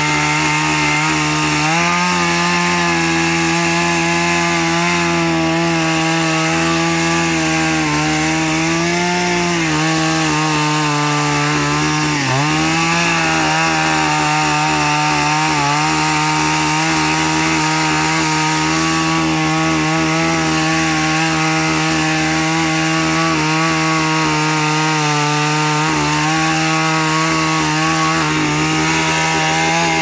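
Chainsaw running continuously as it cuts into a hollow tree stump, its pitch sagging briefly a couple of times as the chain bites into the wood.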